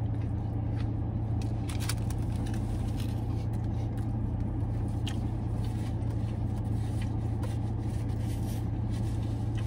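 Steady low hum of a parked car, heard from inside the cabin, with a few faint clicks from chewing and a napkin being handled.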